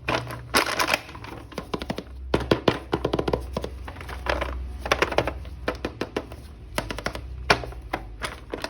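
Irregular clusters of sharp plastic clicks and taps, several a second, as a plastic toy action figure and its packaging are handled.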